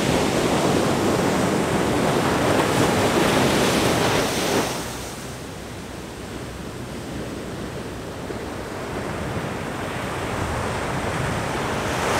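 Ocean surf breaking and washing over rocks, with wind buffeting the microphone. The surf is loud for about the first five seconds, then drops suddenly and slowly builds again.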